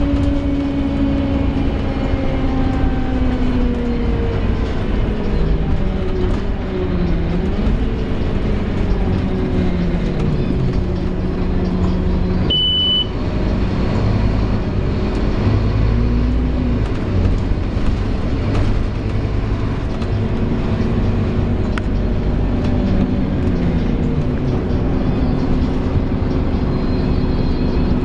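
Scania K230UB Omnilink single-deck bus running, heard from inside, with the groaning noise this bus makes. Its engine and driveline tones slide down as it slows and then dip and rise again several times. A short high beep sounds about halfway through.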